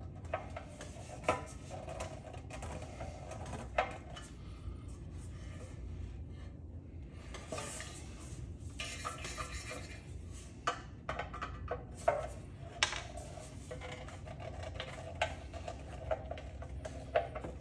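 Irregular metallic clinks and knocks of hand tools and metal parts as an old ceiling fan is taken apart by hand.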